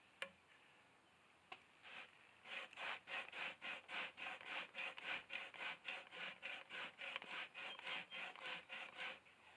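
Beaver hide being worked back and forth over the edge of an upright post, a rhythmic rasping rub of about three strokes a second that starts about two seconds in. The rubbing breaks up the fibers of the skin to soften it as it dries.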